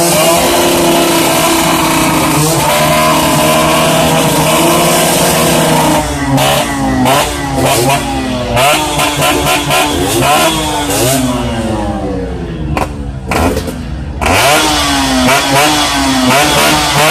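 Yamaha RX100's two-stroke single-cylinder engine revved hard through a loud exhaust: held at high revs for the first several seconds, then blipped over and over, the pitch rising and falling about once a second.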